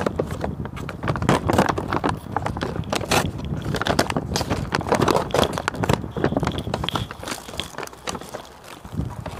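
Paper shopping bag rustling and crinkling as it is pulled open by hand, a rapid run of crackles that grows quieter over the last few seconds.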